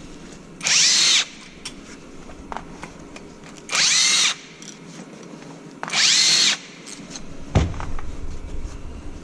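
Power drill-driver run in three short bursts, each whining up in pitch and back down as the trigger is squeezed and released, followed by a single thump near the end.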